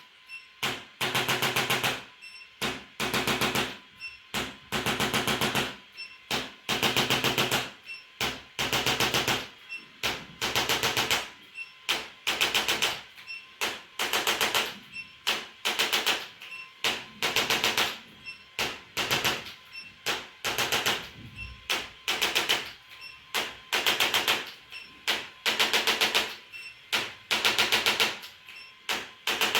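Rapid mechanical rattling: a fast run of taps in bursts about a second long, repeating roughly every two seconds, with quieter gaps in between.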